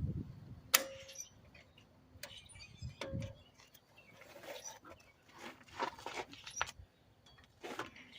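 Scattered metallic clicks and clinks of hand tools working on a drum brake assembly, two of them ringing briefly.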